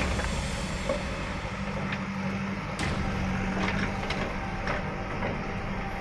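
JCB backhoe loader's diesel engine running steadily as its bucket knocks down a brick wall, with a few sharp knocks of bricks and rubble, the clearest about three seconds in.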